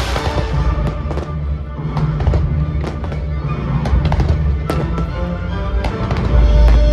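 Fireworks bursting in a rapid run of sharp cracks over music, with a deep low rumble that swells near the end.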